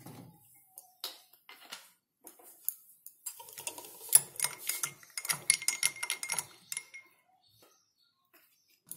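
Metal spoon stirring milk in a drinking glass, clinking against the glass: a few separate clinks at first, then a few seconds of rapid clinking with a faint ringing tone before it stops.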